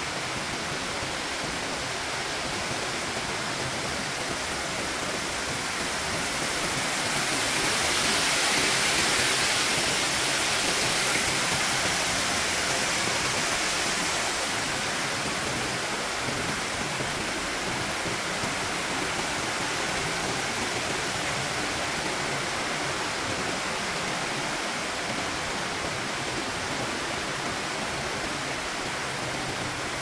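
Steady rush of falling water, swelling louder from about six seconds in and easing back by about fifteen seconds.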